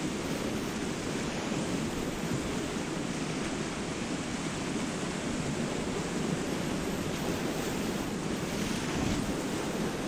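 Whitewater rapids rushing and churning steadily around a kayak, heard close up from the boat, with wind and spray on the microphone.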